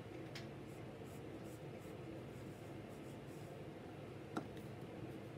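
Wooden pencil sketching on paper: faint scratching strokes, with one sharp light tap about four seconds in.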